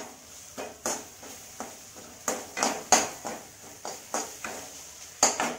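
A flat spatula scraping and knocking against a metal wok while turning a dry, crumbly fried lentil-and-sesame mixture, in repeated short strokes about three a second. The mixture is fried through.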